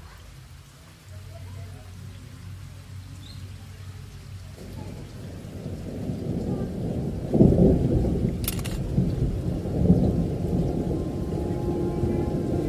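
Recorded rain-and-thunder sound effect: a rolling rumble of thunder over rain swells in about halfway through, loudest a little after that, with a short crack about a second later. Sustained music notes begin near the end as the background track opens.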